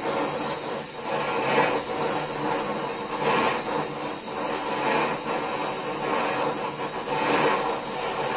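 Flame of a Donmet 132A micro gas welding torch hissing steadily as a steel pipe is welded, with a rougher noise swelling and fading every second or two.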